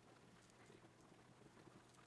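Near silence with faint clicking of a Rubik's cube's layers being turned in quick succession during a solve.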